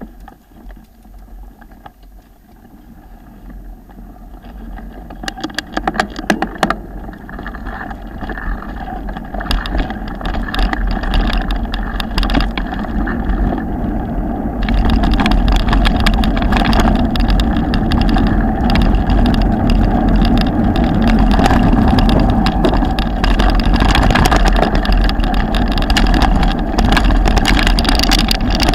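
Wind noise on the camera microphone and tyre rumble of a mountain bike descending a rough dirt and grass track, rising to a steady loud rush in the first half as speed builds. Frequent clicks and rattles come from the bike jolting over bumps.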